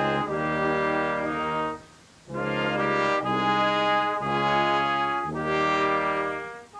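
Small military brass ensemble of trumpets, horn and tuba playing held chords in a slow chorale-like phrase. There is a brief break between phrases about two seconds in.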